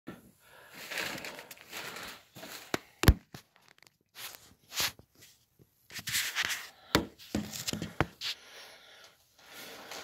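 Rustling and scraping handling noise from a phone camera being moved about by hand, broken by sharp knocks: a loud one about three seconds in and two more near the end.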